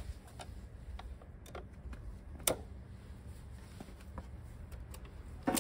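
Light metallic clicks and taps from a hand tool working on the carburettor and fuel-line fittings of a Yamaha YBR 125 motorcycle. Two sharper clicks stand out, about two and a half seconds in and just before the end, over a low steady hum.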